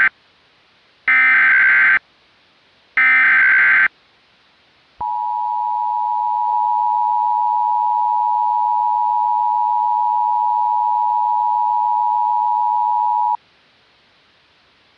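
Emergency Alert System tones: two short bursts of shrill, warbling SAME header data, about a second each, then the EAS attention signal, a steady two-tone beep, starting about five seconds in, held for about eight seconds and cut off abruptly.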